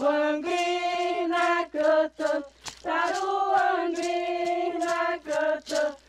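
Group of voices singing a Krenak-language song, in held notes broken by short pauses.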